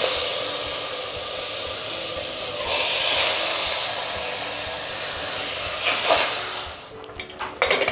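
Loud, steady sizzling hiss from the stove while marinated mutton is moved by hand into a pressure cooker. It swells for a couple of seconds about three seconds in and stops about seven seconds in.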